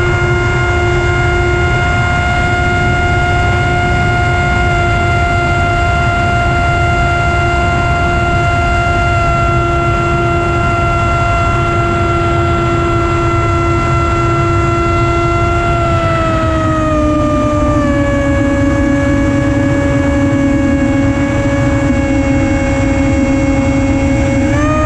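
FPV quadcopter's motors and propellers whining at a steady pitch. The pitch slides lower about two-thirds of the way through and rises again right at the end, over a low rush of wind on the onboard microphone.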